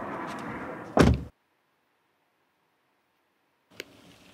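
A car door shutting with a heavy thunk about a second in, over a steady outdoor background noise. Faint in-cabin sounds follow near the end, with a small click.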